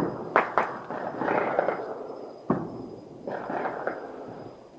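Fireworks going off: a few sharp bangs in the first half-second and another about two and a half seconds in, with rougher rumbling noise between them.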